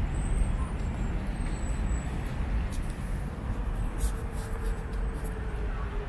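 City background noise: a steady low rumble of distant traffic, with a faint steady hum coming in about two-thirds of the way through.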